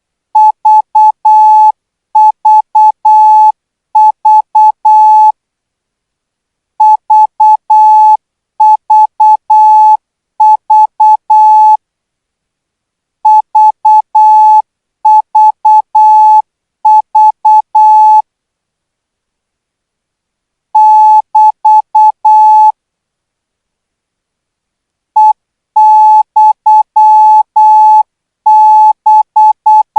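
Thai Morse code practice signal sent at 12 words per minute: a single steady beep tone keyed on and off in short and long beeps. The beeps come in clusters of about a second, with longer pauses between some groups.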